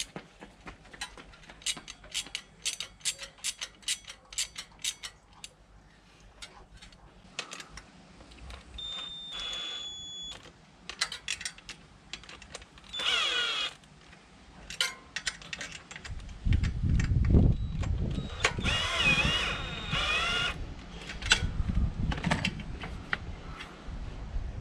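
Cordless drill/driver running the bolts that fasten a motorized-bike sprocket to a bicycle wheel hub, in a few short runs with a motor whine that rises and falls in pitch. Before it come many light metallic clinks of the sprocket, bolts and tools being handled.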